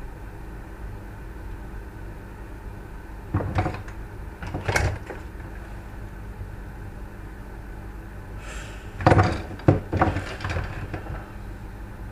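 Short clatters and knocks of parts being handled, in a group about three and a half to five seconds in and a busier run about nine to eleven seconds in, over a steady low hum.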